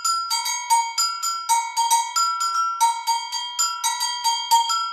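Metal agogo bells struck with a stick in a steady rhythm, about three to four strikes a second, alternating between the lower and the higher bell so two distinct ringing pitches sound.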